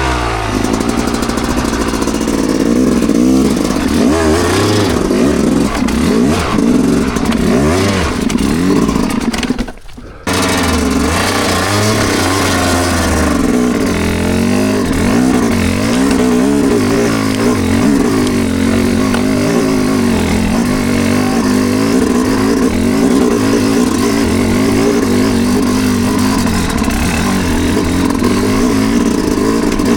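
Off-road motorcycle engine under way on a trail, its revs rising and falling with the throttle. The sound drops out briefly about ten seconds in, then the engine picks up again.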